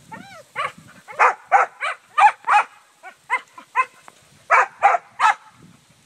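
Dog barking excitedly: a quick, irregular run of about a dozen short, high yaps with brief pauses between them.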